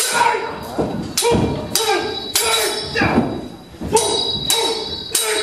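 Swords clashing over and over in a staged sword fight: sharp ringing clangs about two a second, with a short lull around three seconds in.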